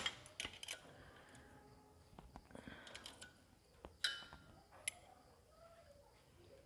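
Faint metallic clicks and taps of hand tools working on a motorcycle engine's valve adjusters, with one sharper click about four seconds in.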